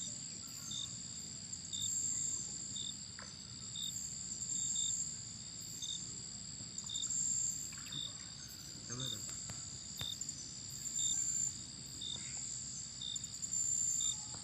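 Night insect chorus: crickets and other insects trilling without pause, with a shrill high chorus swelling and fading about every two and a half seconds and a short chirp repeating about once a second. A few faint clicks and rustles sound through it.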